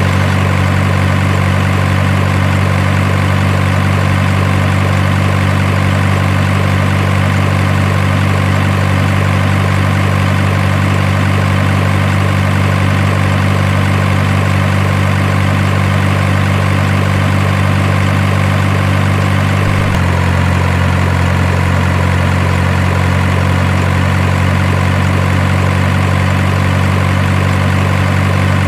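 Heavy truck engine idling: a steady low hum whose tone shifts slightly about twenty seconds in.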